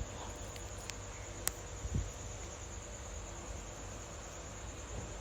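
Steady high-pitched insect chorus, like crickets, over a low background hum, with a few faint clicks and a soft thump in the first two seconds.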